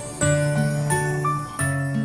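Christmas song with jingle bells over held chords, a new chord coming in twice.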